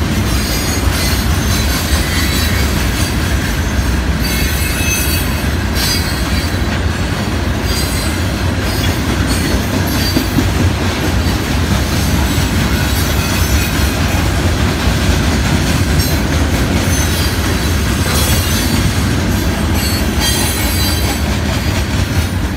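Loaded hopper cars of a long freight rock train rolling past on steel rails: a steady heavy rumble of wheels on track, with squealing wheels coming and going and some clickety-clack over the rail joints.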